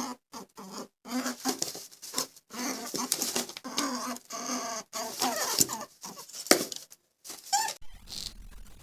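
An animal's short, squeaky calls in quick succession, with brief pauses between bursts. Near the end the calls stop and a faint rustling follows.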